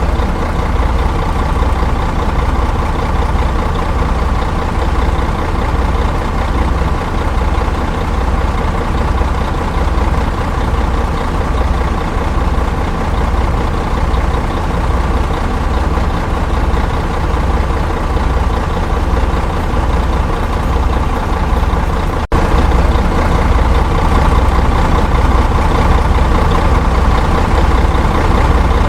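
Big bus engine idling steadily with a low, even throb. It drops out for an instant about two-thirds of the way through and carries on slightly louder.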